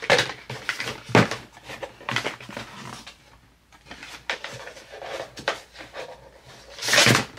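Packaging being handled while products are unpacked: scattered rustles, taps and clicks, with a louder burst of rustling near the end.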